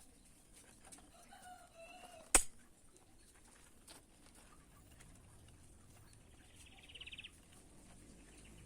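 A faint bird call, then a single sharp click, the loudest sound, about two and a half seconds in, and a short buzzy call around seven seconds in.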